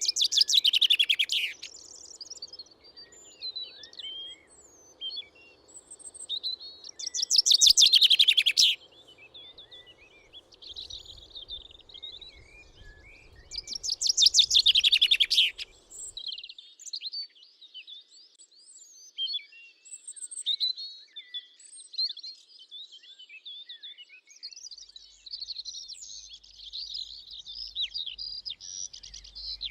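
Small birds chirping and singing in a summer meadow, with a loud, rapid trill that comes three times, about seven seconds apart, over a steady scatter of fainter high chirps.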